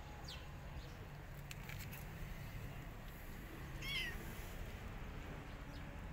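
A kitten gives one short, high meow that falls in pitch, about four seconds in, over a steady low background rumble.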